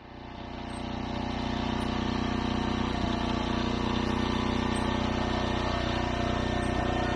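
Gas walk-behind lawn mower's small single-cylinder engine running steadily at a constant speed, fading in over about the first second.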